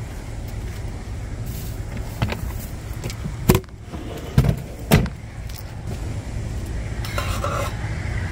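A few sharp knocks and clunks, the loudest about three and a half to five seconds in, over a steady low rumble. Near the end, a metal spoon stirring coffee in a metal travel mug.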